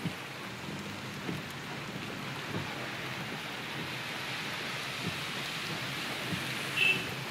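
Steady hiss and wash of floodwater against a car's tyres and body, heard from inside the car as it drives through a flooded street, with faint low knocks about every second and a quarter. A short high squeak sounds near the end.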